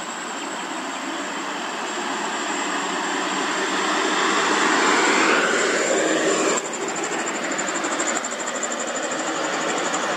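Loaded Mitsubishi Fuso Canter truck's diesel engine and tyres growing louder as it drives closer, with the engine note falling as it passes about five seconds in. About two-thirds through the sound drops suddenly to a steadier, quieter truck engine.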